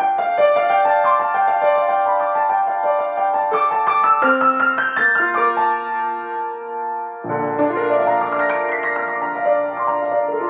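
Solo piano improvising: flowing runs and overlapping notes in the middle and upper range, then deep bass notes come in under fuller chords about seven seconds in.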